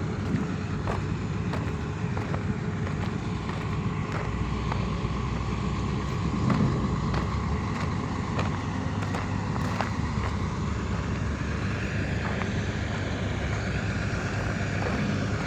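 Excavator's diesel engine running steadily, with scattered light knocks and clicks over it.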